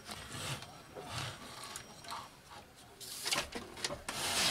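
Rustling and scraping as a CRT television's main circuit board is handled and turned over, in several irregular spells that are loudest about three seconds in and near the end.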